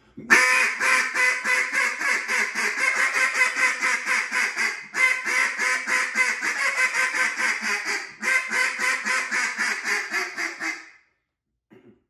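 Duck call blown hard and fast in a long, nonstop string of quacks, about four a second, broken by two brief pauses. This is the loud, relentless calling used to stay on ducks trying to pass overhead, until they turn and go downwind.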